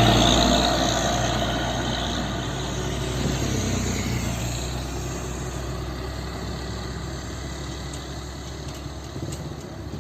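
Mitsubishi Fuso truck's diesel engine running as the truck passes and drives away, fading steadily.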